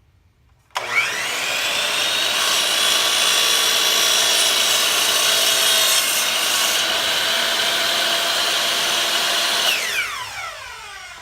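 Electric power saw motor starting up about a second in, running at full speed through a cut in a wood board, then switched off near the end and winding down in falling pitch.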